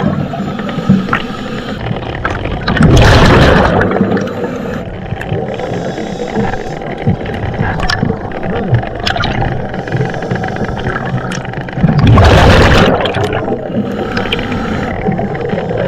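Scuba diver breathing through a regulator underwater: two loud rushes of exhaled bubbles about nine seconds apart, over a steady underwater hiss with small clicks.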